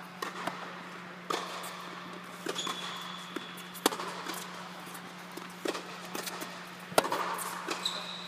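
Tennis balls being struck by racquets and bouncing during a baseline rally: a series of sharp pops a second or more apart, the loudest near the end, over a steady low hum.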